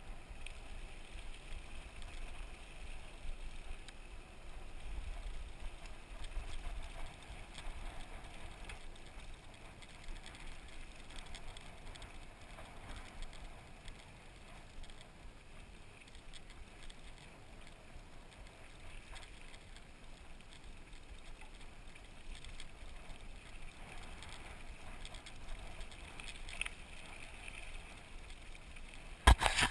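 Mountain bike rolling along a dirt trail: uneven tyre and rattle noise with a low wind rumble on the microphone, ending in a few loud sharp knocks.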